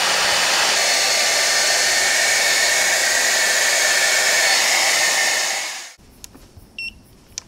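Hair dryer blowing steadily, then switched off abruptly about six seconds in.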